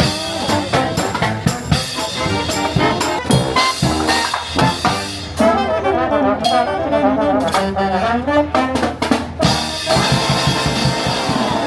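Jazzy music led by brass, trombone and trumpet, over a drum kit, with a melody moving in quick notes.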